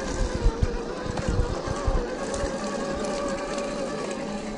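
Electric whine of an Axial SCX10 II RC crawler's 550-size 21-turn motor and gearbox, wavering slightly in pitch as the throttle changes while it crawls along. Several low thumps come in the first two seconds.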